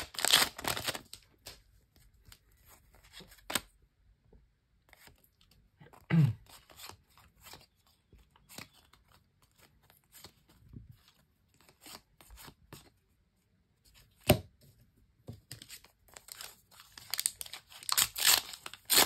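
A foil trading-card pack torn open and crinkled, then quieter handling of the cards with a few sharp clicks. Near the end another pack is torn and crinkled open.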